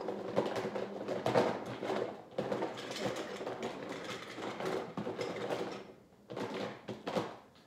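Small plastic toy animals clicking and rattling as they are handled and sorted through, a quick, irregular run of knocks that pauses briefly near the end and starts again.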